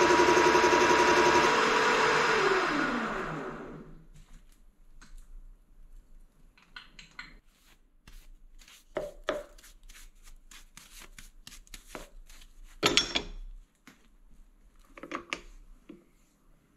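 An electric power tool's motor running steadily, then switched off about two seconds in and winding down with a falling pitch. After that come scattered light clicks and knocks, with one louder clank about thirteen seconds in.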